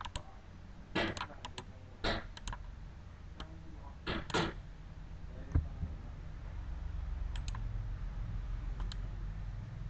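Scattered clicks of a computer mouse and keyboard, a few at a time, over a low hum that grows louder about six seconds in.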